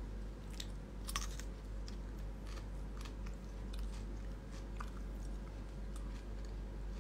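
Scattered small clicks and crackles of mouth and hand noises, over a steady low hum.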